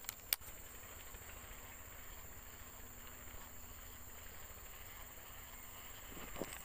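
Faint swamp ambience with a steady high insect drone, broken by two sharp clicks in quick succession near the start, the second louder.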